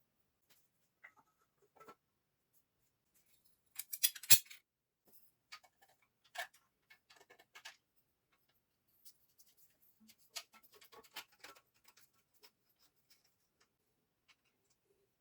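Scattered sharp clicks and light knocks, with a quick rattling cluster about four seconds in that is the loudest, then sparser single clicks and a second loose group later on.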